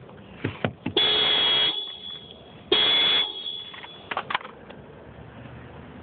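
Vehicle horn sounded by a dog pressing on the steering wheel with its front paws: two steady honks, the first about a second in and lasting under a second, the second shorter, with a few short sharp sounds around them.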